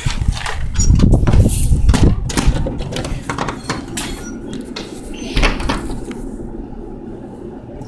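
Handling noise from the recording phone as it is moved and put away: rubbing and knocks on the microphone, heaviest in the first two seconds and dying down after about six seconds.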